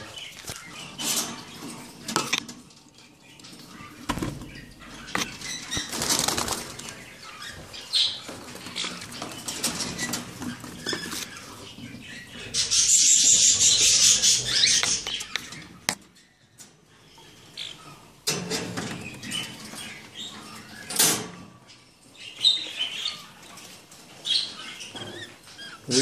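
Caged cockatiels and budgies flapping their wings in a flurry inside their cages, with a few short chirps and scattered knocks. The longest and loudest flutter runs for about two seconds around halfway through.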